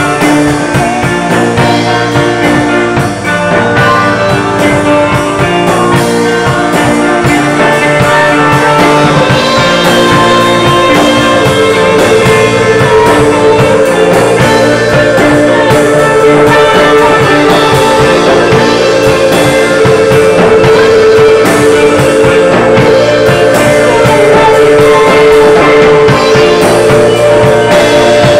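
Live rock band playing: guitars over a drum kit in a loud, dense mix, with a long held guitar note rising above the rest partway through.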